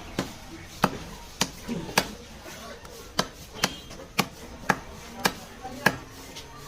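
Knife chopping raw chicken on a cutting surface: about a dozen sharp chops, roughly two a second.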